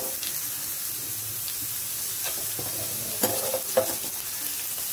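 Oil sizzling steadily in a pan of tempering (mustard seeds, urad dal, dried red chillies) as chopped onion goes in, with a few sharp clicks and taps in the second half.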